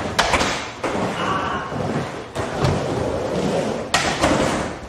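Skateboard wheels rolling on a wooden ramp, broken by several sharp clacks and thuds as the board slaps down and strikes the ramp.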